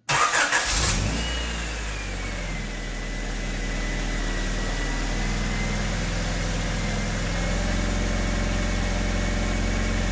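Honda D16Y8 1.6-litre SOHC VTEC four-cylinder starting with a rough first second, then settling into a steady idle with a thin high whine that dips slightly in pitch and then holds. It is the engine's first run after new valve stem seals were fitted and the valve train reassembled.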